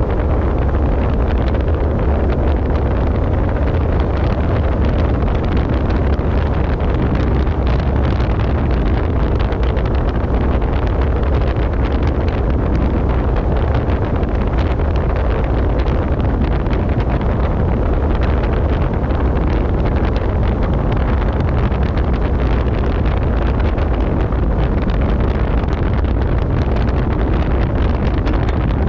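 Wind on the microphone of a Triton bass boat running at speed, with the outboard motor and the hull on the water underneath. The noise is loud and steady throughout, heaviest in a low rumble.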